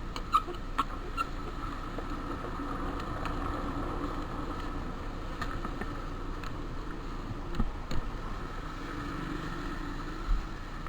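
Motorcycle engine running steadily, with a few light clicks.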